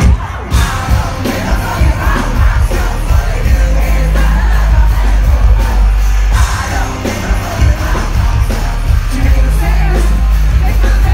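Live rock band playing at full volume, heard from within the crowd: the full band crashes in right at the start with a heavy bass and drum low end, and singing and crowd yelling over it.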